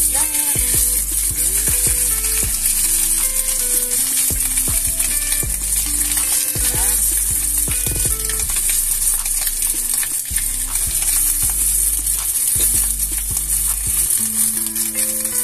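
Salmon steaks sizzling steadily as they pan-fry in a stainless steel pan, with scattered clicks of metal tongs and a spatula against the pan as the fish is turned. Soft music with a melody and bass plays underneath.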